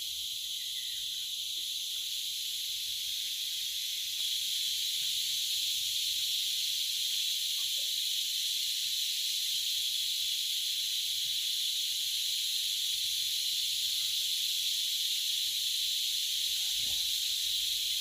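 Steady high, hissing chorus of insects from the surrounding mangrove, which gets louder about four seconds in.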